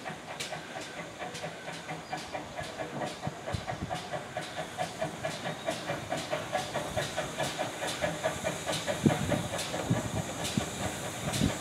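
GWR 1600-class pannier tank steam locomotive running slowly toward the listener: steam hissing over a steady rhythmic beat, growing louder toward the end.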